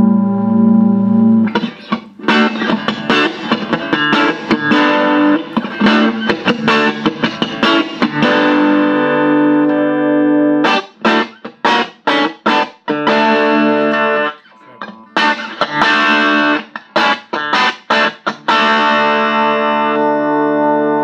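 Stratocaster electric guitar played through a 1971 Watkins Clubman valve amp, whose single EL84 runs in Class A. A held chord rings out first, then single picked notes and runs of short, choppy chord strokes, with a little distortion.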